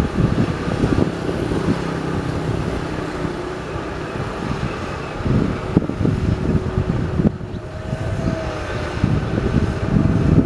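Heavy vehicle engine running steadily, with wind buffeting the microphone.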